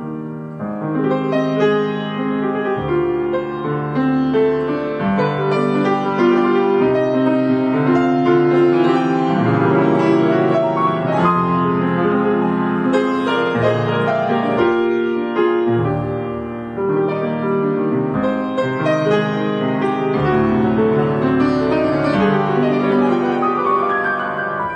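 Solo grand piano played continuously, with full sustained chords and moving melodic lines.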